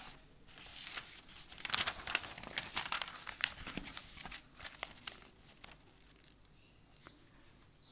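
Paper rustling and crinkling as textbook and notebook pages are turned and pressed flat: a run of quick crackles that dies away after about five seconds.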